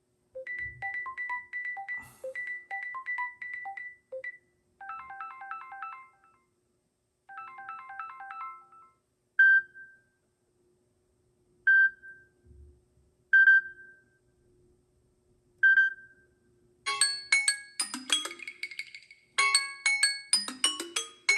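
Samsung Galaxy A33 5G stock ringtones played one after another, each cut short. First a quick repeating figure of high electronic notes, then two short chime phrases, then four single bell-like tones about two seconds apart, and near the end a busier melodic ringtone.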